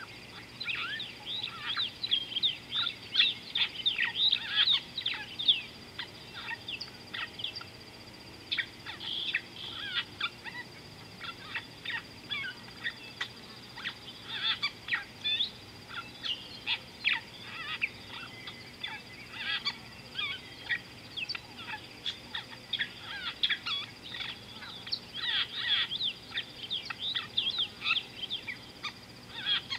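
A chorus of wild birds calling over the water: many short, sharp, downward-sweeping notes overlapping in quick irregular runs, thickest near the start and again in bursts later on. A faint steady high whine runs underneath.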